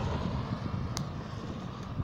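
Storm wind blowing, with low gusts buffeting the phone's microphone, and a faint click about halfway through.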